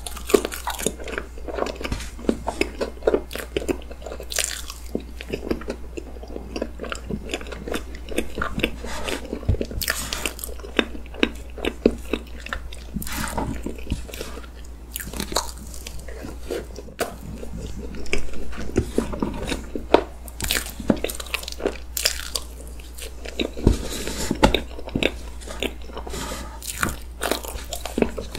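Close-miked eating sounds of chocolate cake with whipped cream being chewed: soft, wet, sticky mouth sounds with many small irregular clicks and smacks.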